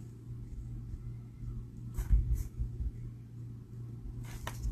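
Spectrum Noir Illustrator alcohol marker nib rubbing softly on cardstock while colouring in, over a steady low hum. There are a few soft bumps on the desk about two seconds in.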